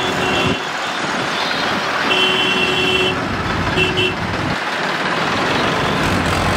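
Tractor engines and highway traffic running, with a vehicle horn sounding three times: a short toot, a longer one of about a second, and another short toot.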